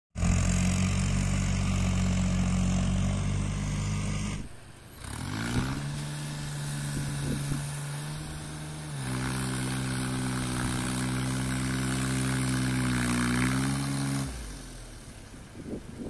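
Small diesel farm tractor engine running under load while ploughing. It dips briefly about four seconds in, climbs back up, and steps to a higher pitch around nine seconds. It falls away near the end.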